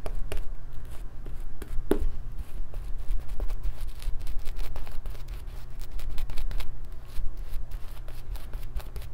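Yaqi synthetic-and-badger shaving brush swirled through shaving-soap lather on the neck and face, a dense, irregular wet crackling and rustling of bristles in lather.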